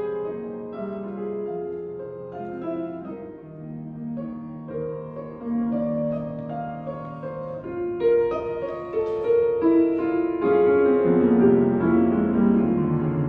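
Grand piano playing a classical accompaniment passage on its own, growing louder partway through; a trumpet comes back in over the piano near the end.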